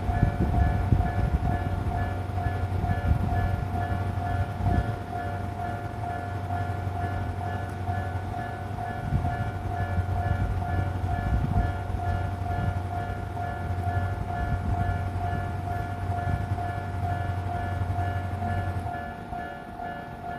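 Japanese level-crossing warning bell ringing in a steady, rapidly repeating ding while a train rumbles over the crossing. The train's low rumble stops near the end while the bell keeps ringing.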